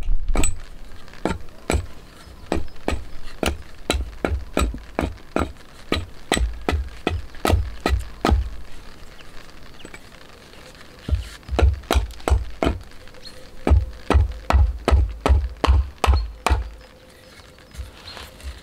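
A hatchet chopping wood: quick sharp blows, about two or three a second. They pause for a couple of seconds, then start again as heavier blows with dull thuds on a wooden chopping stump, and stop near the end.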